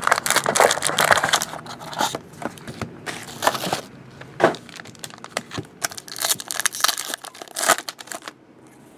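Trading card box opened by hand and the foil pack inside unwrapped: dense crackling and crinkling of cardboard and foil wrapper for the first couple of seconds, then irregular short crinkles and tears.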